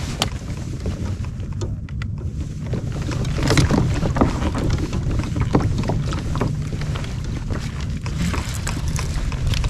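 Wind rumbling on the microphone and water lapping against a fishing kayak's hull while a hooked fish is reeled in, with scattered irregular clicks and knocks and a sharp click right at the start.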